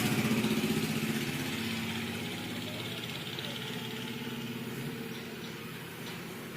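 A low, engine-like drone that fades over the first two seconds, then goes on quietly and steadily.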